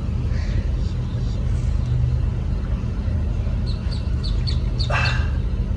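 Steady low engine hum, like an idling vehicle, throughout. A quick run of high bird chirps comes about four seconds in, and a short rushing, splash-like noise follows near the end.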